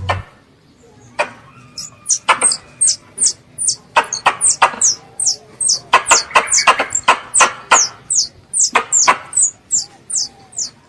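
Young squirrel calling for its mother: a fast series of sharp, high-pitched chirps, each sliding quickly down in pitch, about three or four a second, starting about two seconds in after a few scattered clicks.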